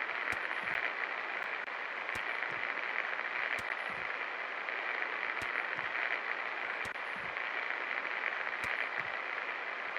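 24-inch Kashmir Nabeel ceiling fan running: a steady rushing of air and motor noise, with scattered faint clicks.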